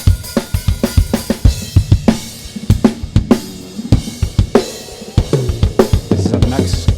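Isolated drum-kit track from a live recording playing a busy beat, with kick, snare and cymbals, heard through a DIY Calrec PQ1549 clone equaliser during an EQ test. Faint bleed of other instruments shows up under the drums from about five seconds in.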